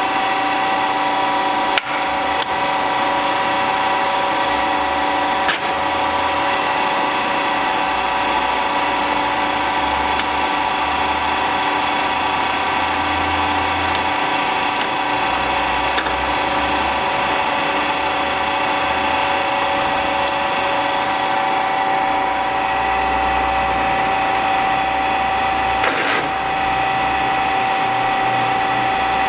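Warner & Swasey No. 3 turret lathe running steadily under power with no cut, its spindle drive giving an even mechanical whine, plausibly still at its 2262 RPM top speed. A few faint clicks sound through it.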